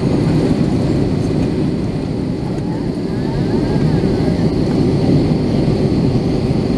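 Steady, deep cabin noise of an Airbus A321 airliner with its CFM56-5B engines running, heard from a passenger seat: engine and airflow noise with no breaks.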